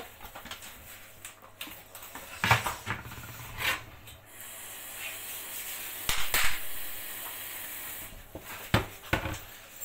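Rubbing and brushing sounds with a few sharp knocks, and a steady hiss that runs from about four seconds in to about eight seconds in.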